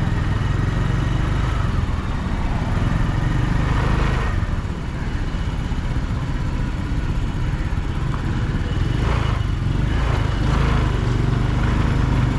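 Motorcycle engine running steadily under the rider as the bike moves along at low speed, heard close to the microphone with road noise.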